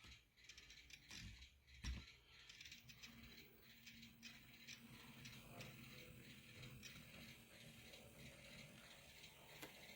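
Faint whir of an N-scale end-cab Baldwin switcher's motor and gearing as it runs, with light clicking of the wheels on the track. A few soft knocks come in the first two seconds before the steady hum sets in.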